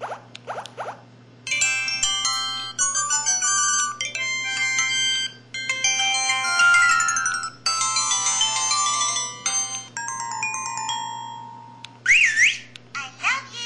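A series of built-in ringtones and sound effects from an LG-SD210 mobile phone, played one after another: quick squeaky chirps at the start, then several bright electronic melodies each lasting a second or two, and a warbling, siren-like effect near the end.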